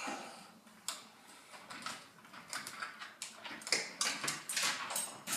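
Irregular light clicks and rattles of hard plastic and metal parts of a window blind being handled and fitted, with a louder cluster near the end.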